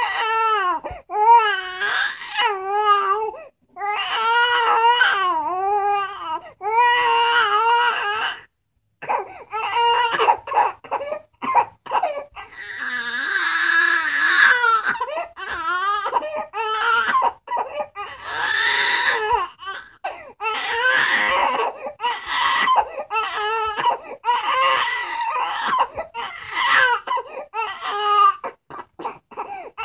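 Young baby crying in repeated wailing bouts with short breaths between them; from about twelve seconds in the cries become rougher and less clearly pitched.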